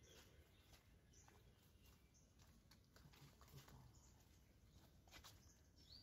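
Near silence: faint outdoor ambience with a few faint ticks and a short high chirp near the end.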